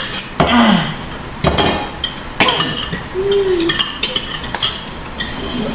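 Spoons and forks clinking against plates and dishes during a meal, about six sharp, ringing clinks at irregular intervals.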